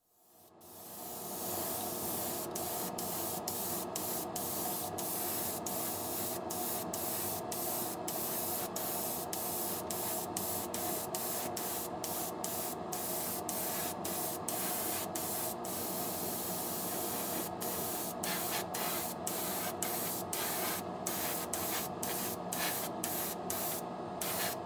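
Airbrush spraying paint onto small model parts: a steady hiss of air and paint that fades in at the start and breaks off for an instant many times as the trigger is let go, with a faint steady hum underneath.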